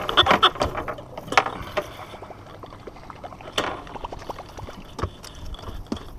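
Irregular clicks and knocks of gear being handled on a fishing boat: a dense clatter in the first second, then single knocks every second or two.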